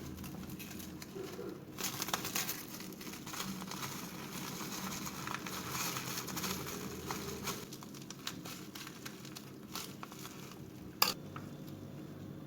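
Kitchen handling sounds during food preparation: several seconds of crinkling and rustling, then a single sharp knock near the end.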